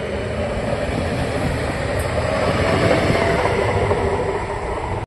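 Electric multiple-unit trains running: a Newag Impuls 2 pulling out of a station, then a Stadler Flirt passing close, its wheel and running noise swelling about three seconds in with a faint whine. The sound cuts off suddenly at the end.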